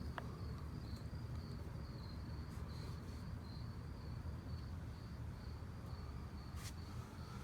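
A cricket chirping faintly, a high, evenly pulsed trill that keeps on without a break, over a low steady hum. A single sharp click comes about six and a half seconds in.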